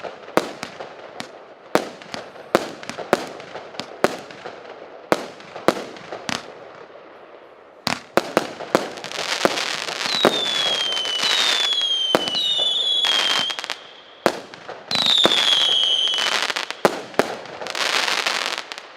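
A 66-shot consumer firework battery (0.8-inch tubes, fanned) firing in quick succession: sharp reports about one or two a second, then from about halfway a dense crackling hiss of shots with several whistling tails that fall in pitch.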